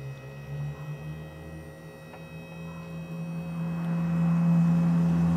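Quickjack 5000TLX lift's hydraulic power unit running as it raises the lift: a steady motor hum that rises slightly in pitch at first and gets louder about halfway through.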